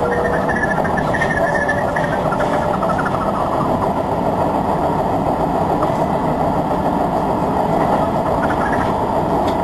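Steady running noise inside an electric commuter train on the move: wheels on rail and motors, with a faint thin tone that fades in the first second or two and a few light ticks near the end.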